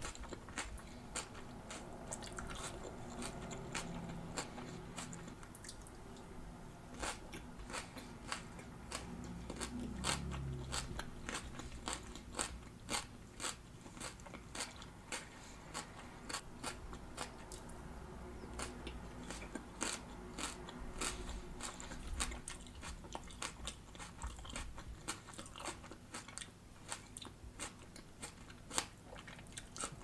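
Close-miked chewing of crunchy raw salad (iceberg lettuce and red cabbage), a steady run of irregular wet crunches and crackles.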